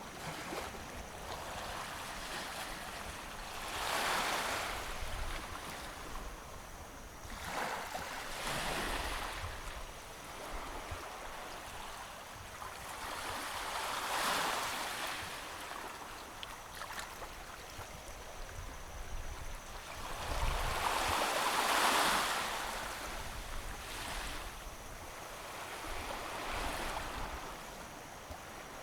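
Sea waves washing up a sandy beach, five swells of surf rising and fading several seconds apart, the biggest about three-quarters of the way through, over a low rumble of wind on the microphone.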